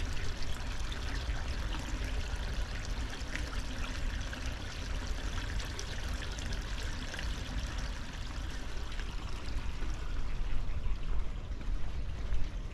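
Water running and trickling steadily in a concrete irrigation channel, with a low rumble underneath.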